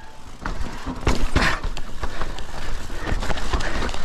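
Mountain bike riding down a rough dirt trail: steady tyre noise with frequent knocks and rattles from the bike, a little louder from about a second in.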